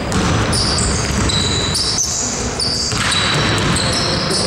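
Basketball game on an indoor gym court: the ball dribbled and players running, with many short high sneaker squeaks on the floor, all echoing in the hall.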